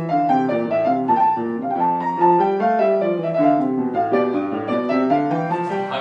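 Grand piano played: a flowing, continuous stream of notes moving over sustained low notes. It cuts off at the very end with a short burst of noise.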